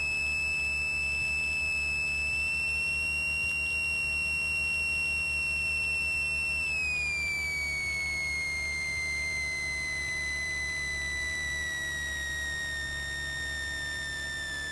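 Cessna 182's stall warning horn sounding through the landing flare and touchdown, the sign that the wing is near the stall as the aircraft is held nose-high at low speed. It is one continuous high tone that holds steady, then slides gradually lower from about seven seconds in, over a low steady engine drone.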